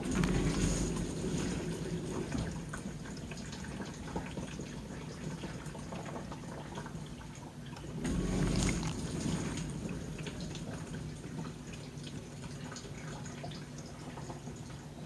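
Samsung DW80R5060US dishwasher running its diagnostic spray-arm test: water sprays and sloshes inside the tub over a steady low motor hum. The sound swells briefly at the start and again about eight seconds in.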